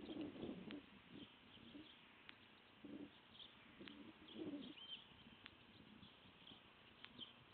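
Faint outdoor background of distant birds: a few low cooing calls, typical of a dove or pigeon, and scattered small high chirps. A faint tick sounds about every second and a half.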